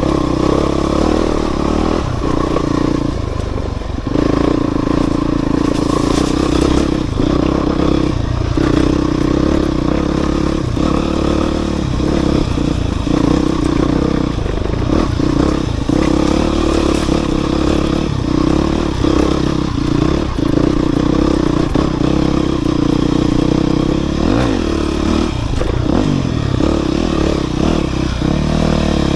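Enduro dirt bike engine running continuously, the throttle rolling off and back on many times, with scattered knocks and rattles from the bike.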